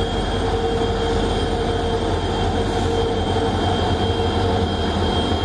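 WDP4 diesel locomotive approaching slowly, its EMD two-stroke V16 engine running with a deep drone and steady high whine tones over it: the turbocharger 'scream' this class is known for.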